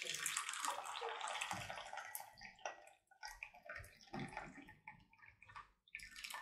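Coffee pouring from a glass French press into a ceramic cup: a steady splashing stream for the first two or three seconds, then breaking into uneven trickles and drips as the pour thins.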